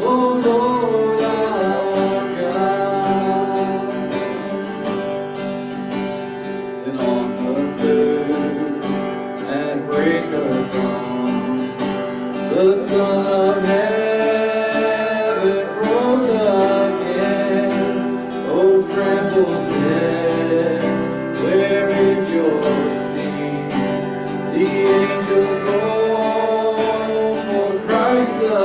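A man singing a worship song while strumming an acoustic guitar, his voice sliding between held notes over the steady strum.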